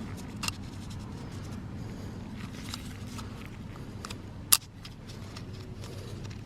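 Light clicks and scraping of hands working a new rubber seal onto a plastic oil filter cap, with one sharp click about four and a half seconds in, over a steady low hum.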